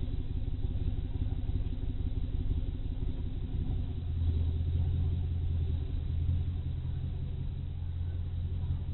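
A Dodge Charger police car's HEMI V8, partially rebuilt after a failed lifter and camshaft, running steadily off-camera with a low drone that swells about three and a half seconds in.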